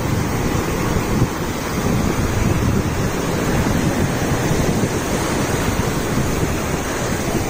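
Ocean surf breaking and washing up a sandy beach in a steady rush, with wind buffeting the microphone in a low rumble.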